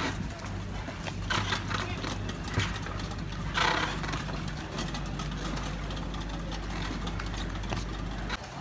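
Boat outboard motors running at low speed with a steady low hum that cuts off near the end. Two brief louder noisy bursts break in, about a second and a half and nearly four seconds in.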